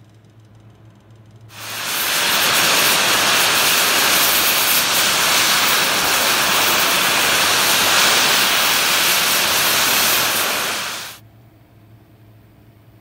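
MIG welding arc burning on steel flat bar: a steady hiss that starts about one and a half seconds in and stops abruptly about nine and a half seconds later.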